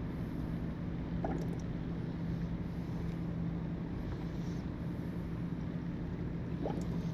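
Steady low mechanical hum of background machinery in the workshop, with a couple of faint light clicks, one about a second in and one near the end.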